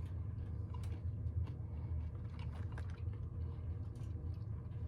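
Faint crunching of spicy candied popcorn being chewed, a few small crackles scattered over a steady low rumble.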